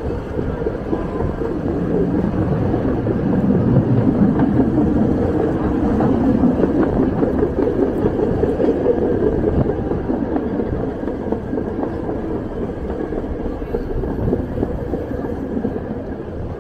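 Historic MUNI F-line streetcar running along its rails, heard from inside the car: a steady low rumble and rattle of the wheels on the track. It is loudest a few seconds in.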